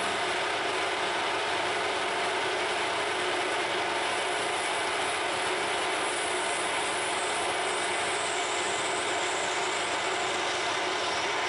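Harrison M300 geared metal lathe running at a steady speed, its headstock gears whirring, as a lathe tool cuts the end of a spinning brass bar.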